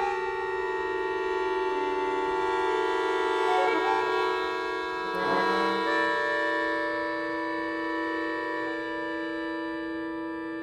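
Titano accordion playing sustained, held chords in a slow free improvisation, the harmony shifting a few times with short note changes around the middle.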